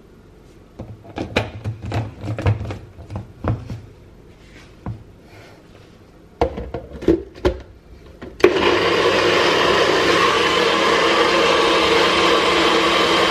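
A few light knocks and clicks, then about eight seconds in a Nutribullet blender's motor starts suddenly and runs steadily at full speed, blending a thick fruit smoothie.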